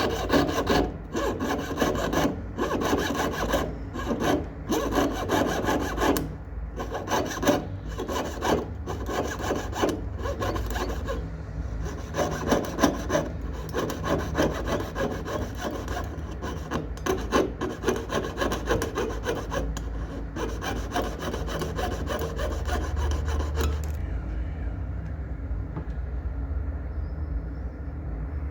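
Rapid, rhythmic back-and-forth rasping strokes of a jeweller's hand tool working a small piece of metal. The strokes stop about 24 seconds in, leaving a low steady hum.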